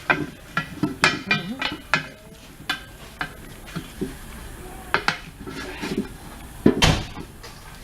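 Metal tools and steel wheel parts clanking and clinking during tire work: a string of irregular knocks, several ringing briefly, with the heaviest knock about seven seconds in.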